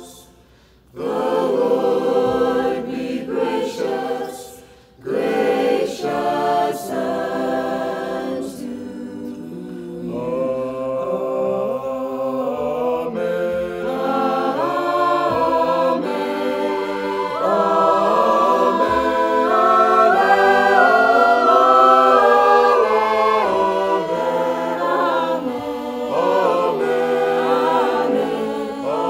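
Mixed choir of men's and women's voices singing, with two brief pauses between phrases in the first five seconds, then growing louder and fuller from about halfway through.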